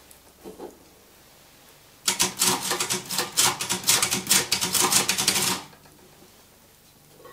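Vintage typewriter being typed on fast: a rapid, uneven run of key strikes that starts about two seconds in, lasts about three and a half seconds, then stops.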